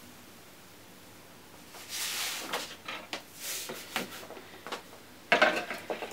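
Powdered citric acid tipped from a bowl into a large plastic mixing bowl, with soft hissing pours and small knocks. About five seconds in comes a loud crinkling as a pouch of the next dry ingredient is picked up.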